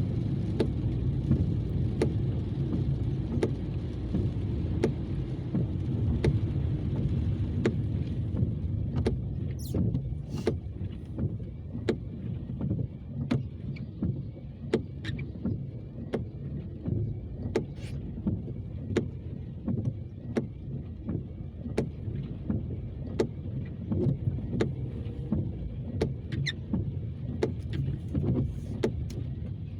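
Car driving, heard from inside the cabin: a steady low road and engine rumble with many short, irregular sharp taps.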